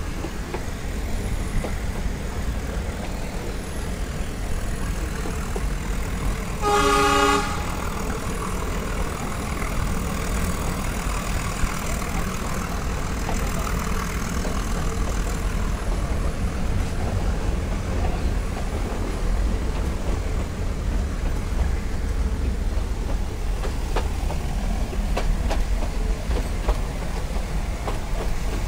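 Nilgiri Mountain Railway train running, heard from an open carriage window as a steady rumble and wind. The locomotive gives a single short toot about seven seconds in.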